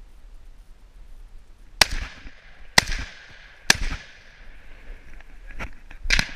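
Three loud gunshots from a hunting gun, about a second apart, each leaving a short echoing ring; the rapid follow-up shots suggest a semi-automatic firing repeatedly at running game. Fainter knocks follow near the end.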